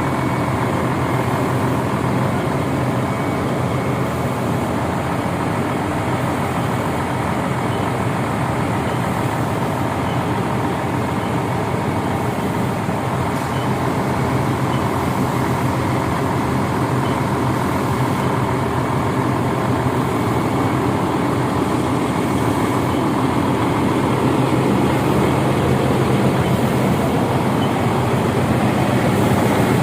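Heavy diesel truck engine running steadily, as from the concrete pump and mixer trucks at a concrete pour; it grows slightly louder near the end.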